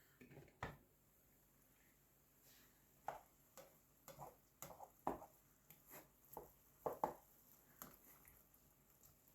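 Faint, irregular clicks and taps from the pot of simmering beef stew, mostly in the middle of an otherwise near-silent stretch.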